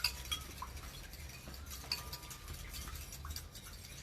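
Forks clinking and tapping against bowls as children whisk the liquid ingredients for pancake batter. Light, irregular clicks come in quick succession.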